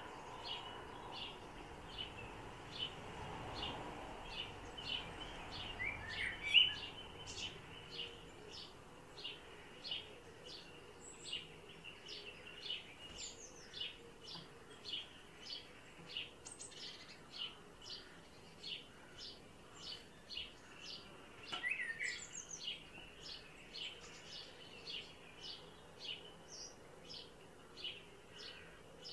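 Male common blackbird giving short, sharp alarm calls over and over, about two a second, as it keeps watch for danger. Louder, lower gliding notes break in about a quarter and three quarters of the way through.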